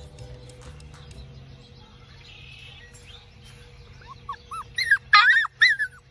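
Labrador retriever puppies yipping and whining: a quick run of short, high squeals that rise and fall, starting about four seconds in.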